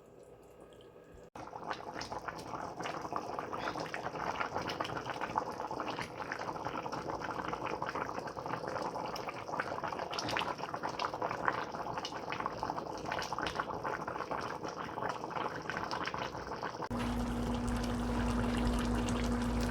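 A pot of food on the stove bubbling at the boil, with steady fine crackling and popping. It starts suddenly about a second in, and near the end gives way to a steady low hum.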